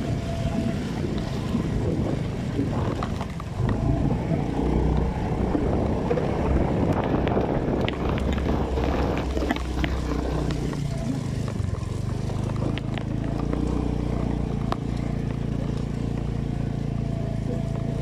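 Motor scooter engine running while riding over a rough, rutted dirt road, with scattered knocks and rattles from the bumps. The engine's steady low hum comes through more clearly in the second half.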